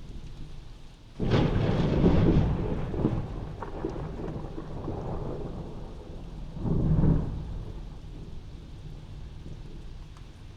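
A thunderclap breaking sharply about a second in and rumbling on for several seconds, with a second swell of rumble around seven seconds in, over steady rain.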